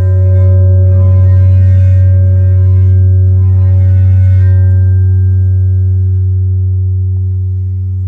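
A large round metal Chladni plate strewn with sand is rubbed with a rubber-ball mallet and rings with a loud, steady low drone and a stack of overtones. Rubbing noise swells about a second in and again around four seconds. In the second half the tone slowly fades. The plate is sounding one of its resonant modes, the vibration that sorts the sand into nodal rings.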